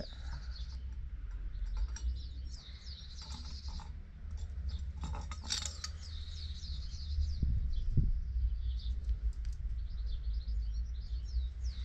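Small birds chirping over and over, with a steady low rumble underneath and a few sharp clicks from handling the gas stove and cartridge adapter about five seconds in.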